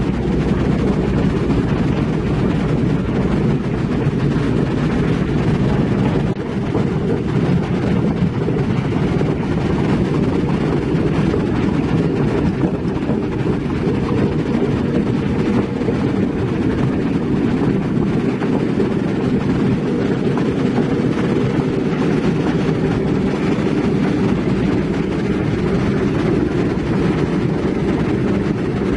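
Heavy diesel construction machinery running steadily: a loud, even low rumble.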